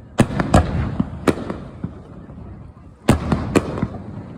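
Fireworks shells bursting over the sea in sharp bangs, each followed by a rolling rumble. Three bangs come within the first second and a half, and another quick cluster of three about three seconds in.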